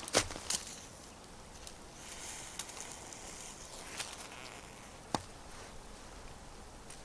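A few footsteps in dry leaf litter fading off within the first second, then quiet outdoor ambience with one sharp click about five seconds in.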